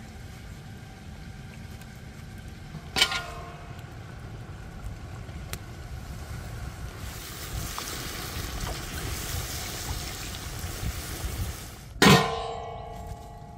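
A metal pot lid clinks as it is lifted off a hot, steaming cauldron. Red wine is then poured in from a bottle and hisses for several seconds. About twelve seconds in, the metal lid is set back on the pot with a loud clang that rings briefly.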